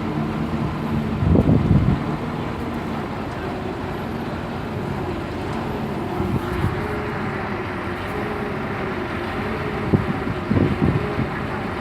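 Heavy truck's engine running steadily, with a few louder knocks and bumps about a second and a half in and again near the end.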